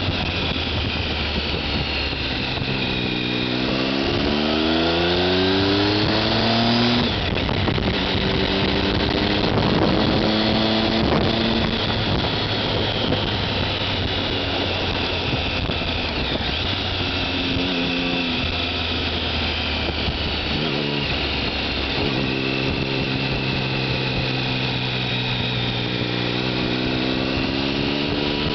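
Triumph Tiger 1050's inline-triple engine through a Mivv aftermarket exhaust, ridden at medium speed. It climbs in pitch as it accelerates from about three seconds in, drops sharply at about seven seconds, pulls up again, then settles into a steady cruise over a constant rush of wind and road noise.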